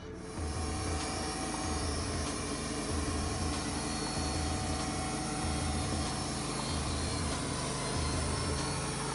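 Wood-Mizer LT35 portable band sawmill cutting a Douglas fir log: the engine runs under load as the band blade saws through the wood, a loud steady rushing noise over a low, wavering drone. It comes in sharply within the first half second.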